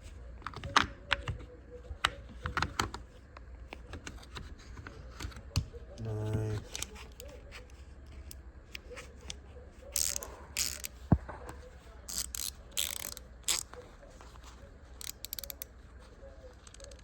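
Tactix stubby ratcheting screwdriver clicking in short, irregular runs as its ratchet is turned and the tool is handled.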